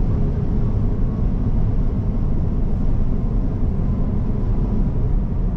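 Steady road and tyre noise heard inside the cabin of a Tesla Cybertruck, an electric dual-motor pickup, at highway speed. It is a low rumble with no engine note.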